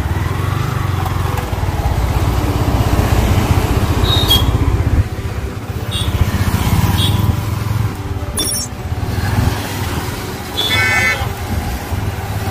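Road traffic with a vehicle engine running steadily, and a vehicle horn honking briefly about ten and a half seconds in.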